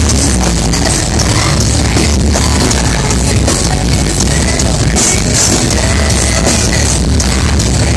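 Rock band playing live and loud: electric guitars and a drum kit through the venue's sound system, heard from within the crowd.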